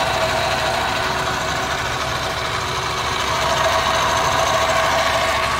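Steady machinery hum with a faint, even whine over it.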